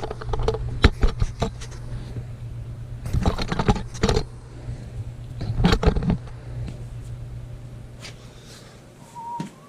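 Metal hand tools clicking and clanking in short bursts as a bolt is worked loose with a wrench, over a steady low hum that fades away after about seven seconds.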